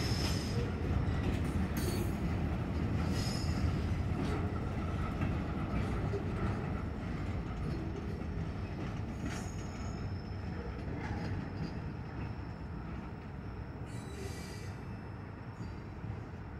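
Freight train cars rolling away on the rails: a steady rumble of wheels with brief high wheel squeals and a few clanks, slowly fading as the train recedes.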